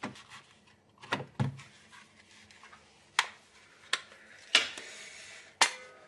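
A string of sharp clicks and knocks, about seven in all, from small hard objects being handled and set down. The knock about four and a half seconds in is followed by a brief scrape.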